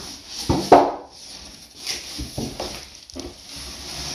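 Packaging being handled: a plastic bag crinkling and a cardboard box rustling as a plastic-wrapped multicooker is lifted out. There are several knocks, the loudest just under a second in.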